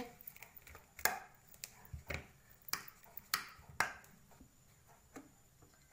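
Stainless steel potato masher pressed through boiled potatoes in a steel bowl, its metal grid clinking sharply against the bowl about five times, with fainter taps between. It goes quieter after about four seconds.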